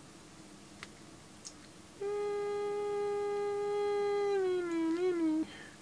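A man's voice holding one long sung note that starts about two seconds in, stays level, then slides down in pitch with a waver before stopping.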